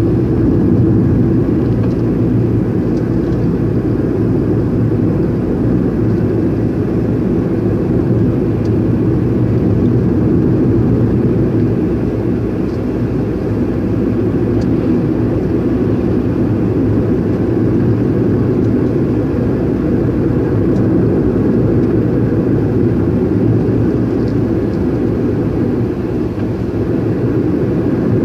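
Steady road and engine noise of a car cruising, heard inside its cabin: an even low rumble that holds level, with a slight dip in loudness about halfway through.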